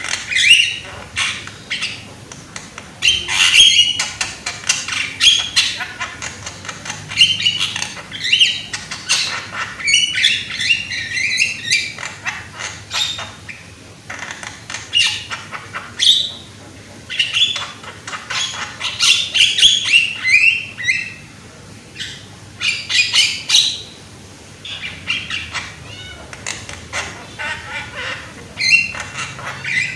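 Javan myna calling: loud, harsh squawks and chattering notes in bursts of a second or two, repeated over and over.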